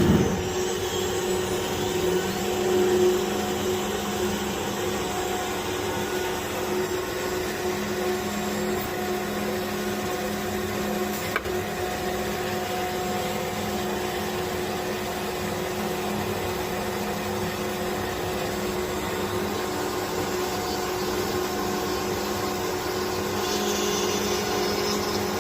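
CNC router running steadily as it machines a wooden part, a constant whine of the spindle and cutter with a single sharp click about eleven seconds in.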